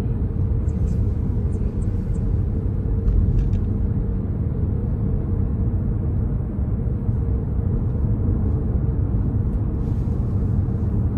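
A car driving along a city road, heard from inside the cabin: a steady, low rumble of road and engine noise.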